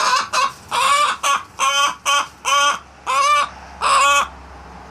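Dorking chicken squawking: a rapid run of about nine loud, harsh calls that grow longer and farther apart, then stop about four seconds in.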